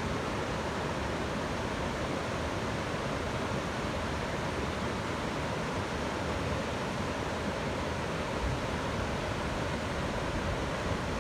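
Waterfall pouring steadily, a constant even rush of falling water.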